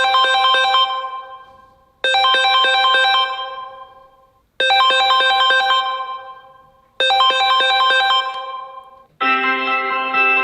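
Samsung Galaxy Note 20 Ultra ringtones playing: a short, bright melody of quick chime-like notes that rings out and fades, repeating four times about every two and a half seconds. Near the end a different ringtone begins, with held synth chords.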